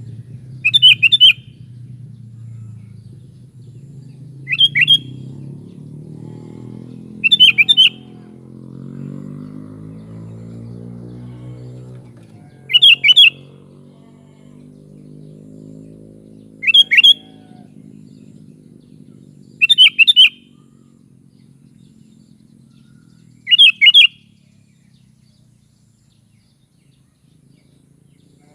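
Sooty-headed bulbul (kutilang) calling in short, loud phrases, seven of them spaced three to four seconds apart. A low rumble runs underneath and fades away in the second half.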